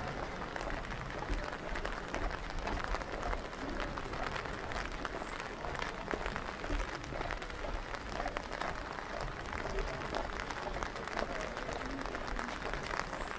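Steady rain falling: a continuous hiss made of many small drop ticks.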